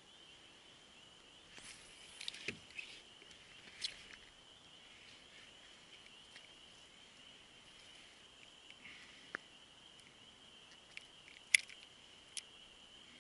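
A faint, steady high-pitched chorus of distant calling animals carries on throughout, with a few scattered light clicks and knocks from the kayak paddle and fishing gear, the sharpest near the end.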